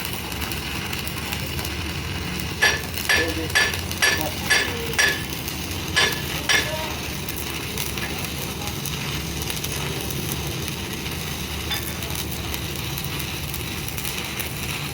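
About eight sharp hammer strikes on steel, each one ringing, come in quick succession between roughly two and a half and six and a half seconds in. Under them a steady crackling hiss and a low hum run throughout.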